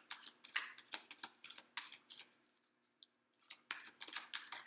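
Tarot or oracle cards being handled and shuffled: an irregular run of short, crisp card clicks and rustles, several a second, with a brief pause about two and a half seconds in.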